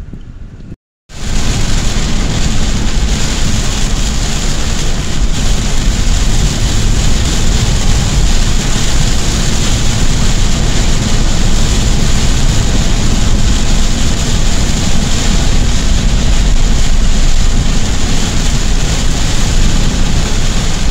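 Torrential rain beating on a moving car's roof and windshield, with tyres hissing through water on the road: a loud, steady noise heard from inside the car. About a second in, fainter wind noise cuts off in a brief dead gap before it.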